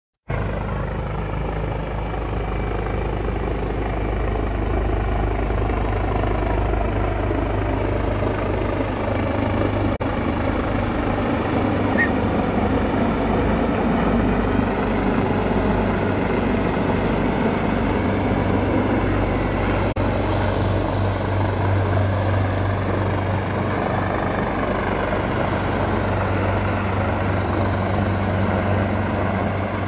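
Helicopter flying overhead and descending to land: a loud, steady rotor and engine drone, slightly louder midway as it passes closest.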